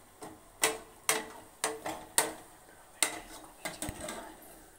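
Perforated steel skimmer clinking against the side of a steel pot as fried pastries are pushed down into sugar syrup: about six sharp taps, roughly one every half second, with quiet between.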